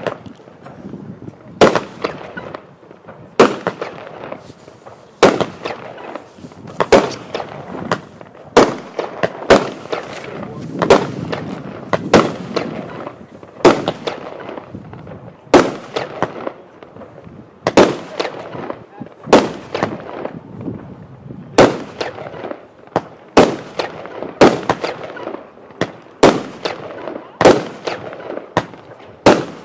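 Xplode Outliner firework battery (cake) firing shot after shot: about twenty sharp bangs, roughly one to two seconds apart, each with a short tail, over a continuous rumble between shots.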